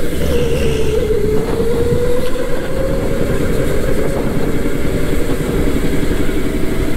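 Electric go-kart's motor whining under power, its pitch dipping about a second in and then rising and holding as the kart picks up speed again, over a steady low rumble.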